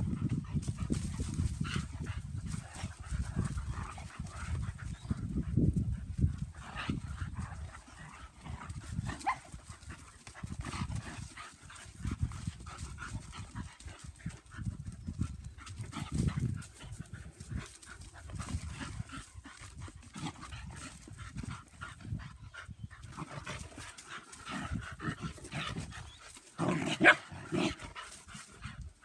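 German Pinschers play-fighting: rough low growling and scuffling as they wrestle, with a short loud bark near the end.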